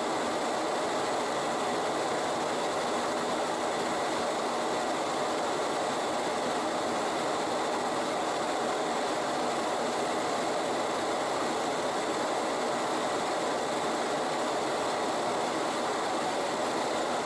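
Steady rushing noise inside a Boeing 737 cockpit in flight: air streaming over the windshield and nose, with the aircraft's systems humming underneath.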